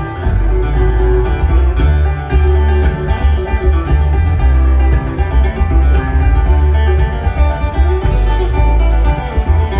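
Bluegrass string band playing an instrumental passage with banjo, fiddle and upright bass. The bass notes are strong and steady underneath.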